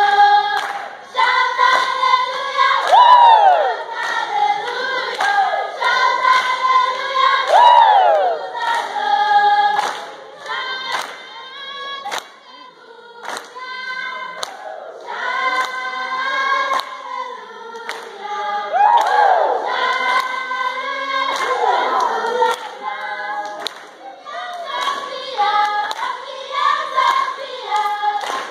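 Children's choir singing a cappella in many voices, with high sliding calls rising over the group now and then, over regular sharp beats.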